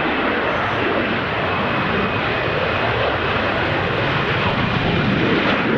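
AV-8B Harrier's Rolls-Royce Pegasus vectored-thrust turbofan running loud and steady as the jet lands: dense jet noise with a faint high whine that sinks slightly in pitch.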